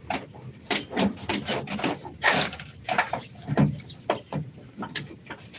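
A rapid, irregular series of knocks and clicks from hand work on the vehicle.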